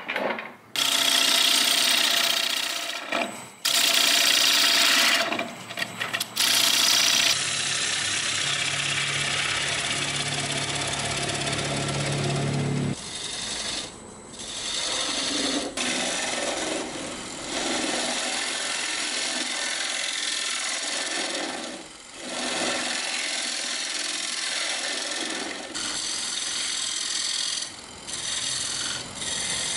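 A turning tool cutting into the face of a pine disc spinning on a wood lathe, hollowing a small recess: a rough scraping hiss of wood being shaved, in several passes broken by brief pauses.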